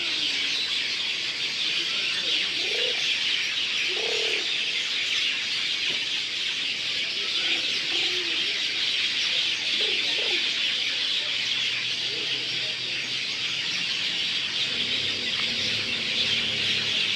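A dense, continuous chorus of many small songbirds chirping and twittering. A few separate lower calls rise and fall over it about 3, 4, 8 and 10 seconds in. A faint low hum joins in during the last few seconds.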